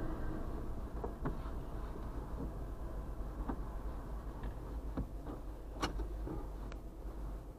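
The tail end of a freight train rolling past, heard from inside a vehicle: a steady rumble with irregular clicks and clanks from the wheels and cars. It thins out near the end as the last car goes by.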